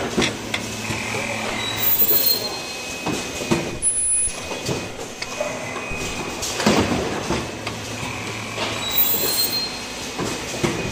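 Richpeace automatic cup mask machine running: a steady mechanical hum with irregular clacks from its pneumatic pick-and-place arms and conveyor. Short high squeals of air come about two seconds in and again near the end.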